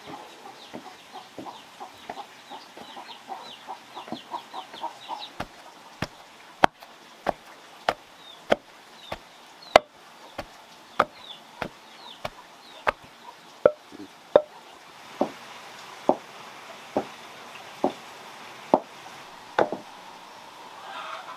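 Wooden pestle pounding a soft white mash in a mortar: a steady rhythm of dull thuds, about one and a half a second, which stops shortly before the end.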